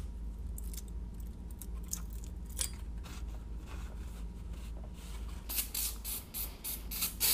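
Gloved hands and a rag scraping and rubbing at the engine's crankcase flange as the old oil pan gasket is pulled off and the surface wiped, over a low steady hum. Near the end, a quick run of short sharp noises.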